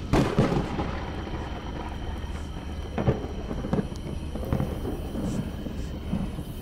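Low steady rumble with several sudden thumps and rustles, the loudest just after the start: buffeting and handling noise on a handheld camera's microphone.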